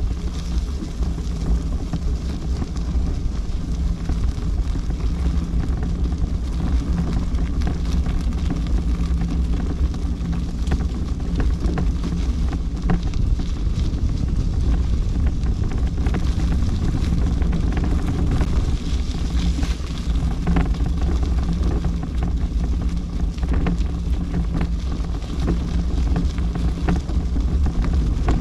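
Steady low rumble with wind noise on the microphone, a faint steady hum and scattered small clicks, as when travelling along outdoors.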